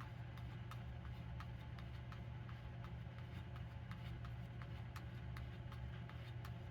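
Faint, even ticking, about three ticks a second, over a steady low hum.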